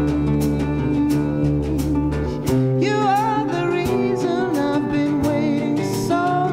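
Background music: a song with guitar and a singing voice over a steady beat.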